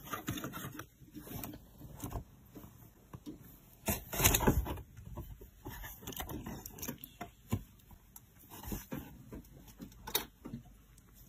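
Irregular scuffs, rustles and knocks of a cat shifting and batting about inside a cardboard box, with a louder scraping rustle about four seconds in and a sharp click near the end.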